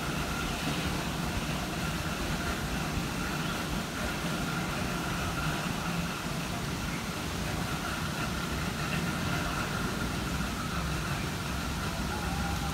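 Steady low rumble of background machinery or traffic noise, with a faint steady high hum above it.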